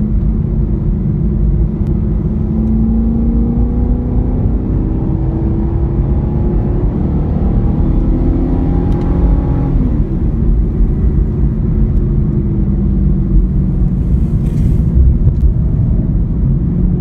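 Chevy SS's 6.2-litre LS3 V8 running under steady load at track speed, with constant road noise. The engine note climbs slowly, drops sharply about ten seconds in, then holds steady and starts to rise again near the end.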